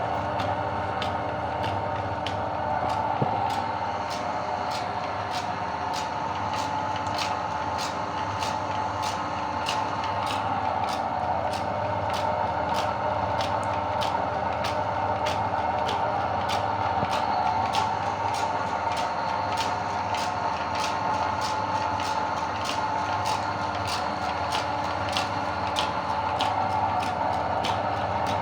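Electric meat grinder running steadily, with a sharp regular tick about one and a half times a second.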